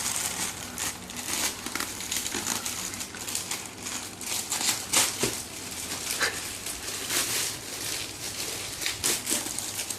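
Parcel packaging being handled and unwrapped by hand: a busy, irregular run of crinkling and rustling.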